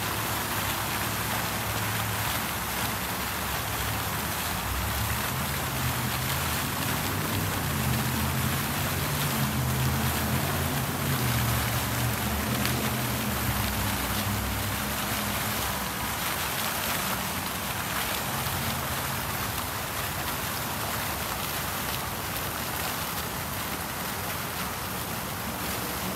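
Fountain jets spraying and splashing steadily into a concrete basin, with a low rumble of traffic underneath that grows louder for a while in the middle.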